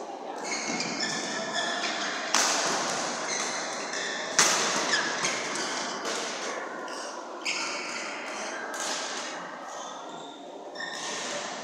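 Badminton rally: several sharp racket strikes on the shuttlecock a couple of seconds apart, the loudest near the middle, ringing in a large echoing hall, with short shoe squeaks on the court floor between them.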